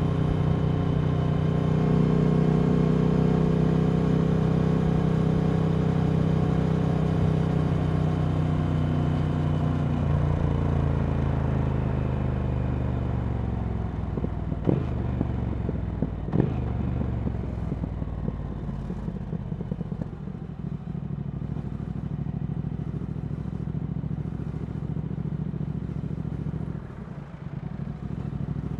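Triumph Speed Twin 1200's 270-degree parallel-twin through a Vance & Hines slip-on exhaust, riding at a steady pace, then easing off so its note falls over about ten seconds. Two sharp clicks come about a second and a half apart partway through the slowdown. It then runs on at a lower, steadier note, dipping briefly near the end.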